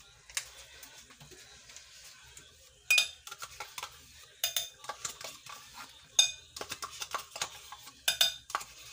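Metal spoon scraping yogurt out of its pouch and clinking against a glass mixing bowl of egg batter, with several sharp ringing clinks spread through the stretch.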